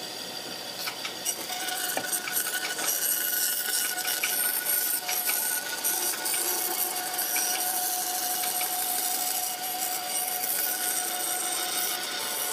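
A tool working wood, a steady scraping that grows louder about a second in, with a few sharp clicks.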